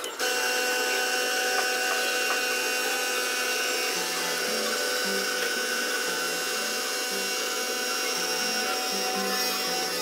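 Lelit Mara X espresso machine's vibratory pump buzzing steadily while water is purged through it, splashing into a plastic jug. The buzz starts abruptly.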